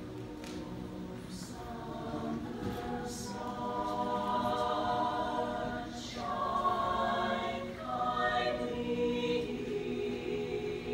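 A mixed-voice high school choir of about a dozen singers performing a slow a cappella song in held chords. The singing grows louder a couple of seconds in, with brief breaks between phrases about six and eight seconds in.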